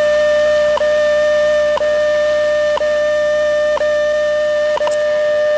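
Radio time-signal broadcast: a steady mid-pitched tone, cut by a short tick about once a second, marking the seconds, with a double tick near the end.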